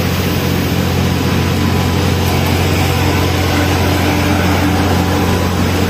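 Steady, loud engine drone of an airport apron: a deep hum with a broad rushing noise over it, from aircraft turbine engines and ground vehicles.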